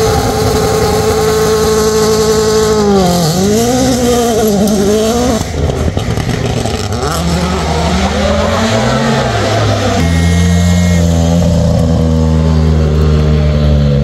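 Rally car engine running loud at high revs. Through the middle the revs dip and climb several times, and about ten seconds in the sound changes abruptly to a lower, steady engine note.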